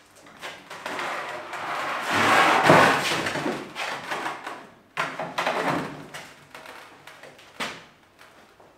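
A heavy steel welding table of 10 mm plate, about 50–60 kg, scraping and grinding across a wooden work table as it is levered and tipped onto its side. There are two long scrapes and a sharp metal knock near the end.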